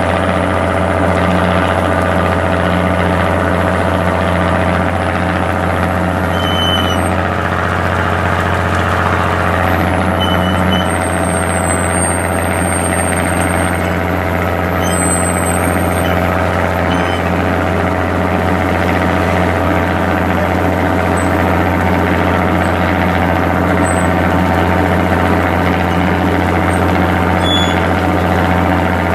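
A fishing boat's engine running steadily, a constant low drone with no change in speed.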